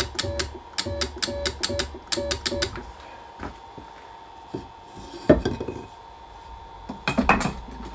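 Drill press knee drive motor running upward in short stop-start spurts, with rapid ticking and a hum that start and stop together, during the first few seconds. It is followed by a single knock and then a brief wooden clatter as a block of wood is lifted out from under the knee.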